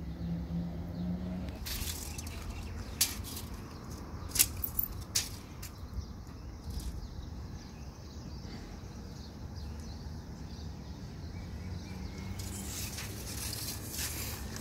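Handling of a steel tape measure: a few sharp clicks a few seconds in and a stretch of hiss near the end as the blade is pulled out, over a steady low outdoor hum.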